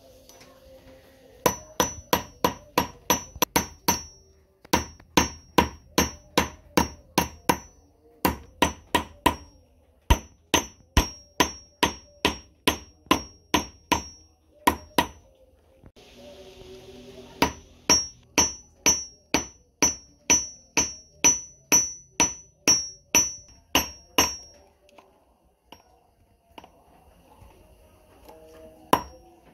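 Hammer forging a small cast metal bar on a steel anvil: runs of sharp blows at about three a second, each with a high metallic ring, broken by short pauses. The blows thin out to a few scattered strikes near the end.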